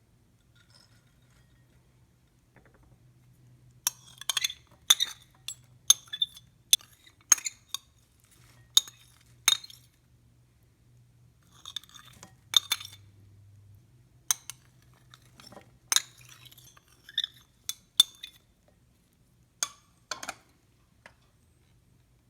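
Kitchen utensils clinking against a glass bowl and dishes as salad ingredients are added and mixed. The sharp, irregular clinks begin about four seconds in, come in clusters, and pause briefly twice.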